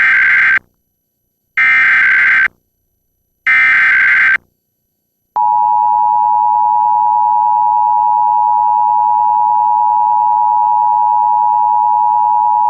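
Emergency Alert System SAME header: three loud, one-second bursts of digital data tones, about a second apart. They are followed about five seconds in by the EAS two-tone attention signal, a steady two-note alarm tone that opens a Required Monthly Test.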